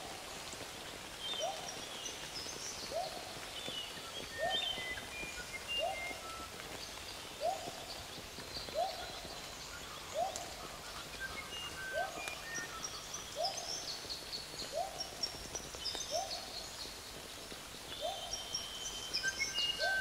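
Nature ambience: a single animal's short, rising call repeated steadily about once every second and a half, with small birds chirping and whistling intermittently at a higher pitch.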